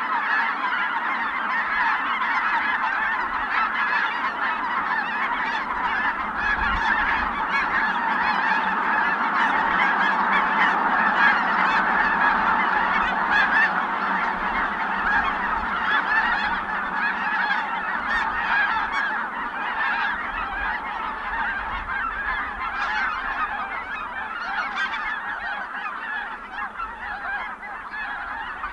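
A large flock of Ross's geese calling all at once in a dense, unbroken chorus.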